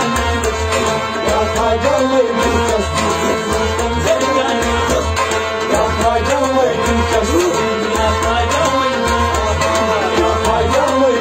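A Sufi devotional song performed live: a man sings a wavering melody over a held harmonium and a plucked rabab, with a steady low beat underneath.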